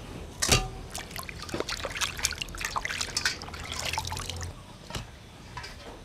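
Water splashing and dribbling as pieces of cleaned shark are rinsed in a stainless steel bowl of water and lifted out, water running off them back into the bowl. The loudest splash comes about half a second in.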